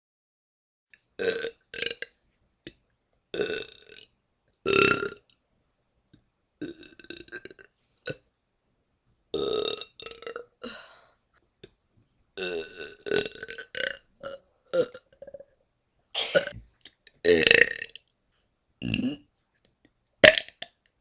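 A person burping over and over: about a dozen belches, some short and some drawn out.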